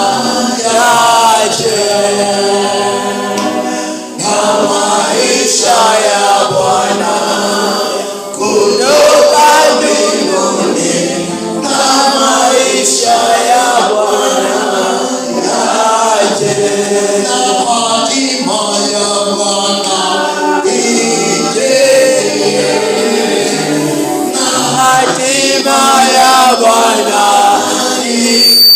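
Choir singing a gospel worship song, many voices together.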